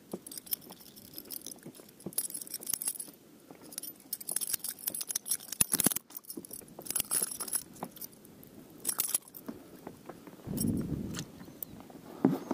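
Metal clinking and jangling of a spinner lure, its hooks and a metal fish lip-grip as a deep-hooked pike is unhooked by hand, in irregular bursts of sharp clicks. A short muffled handling sound comes near the end.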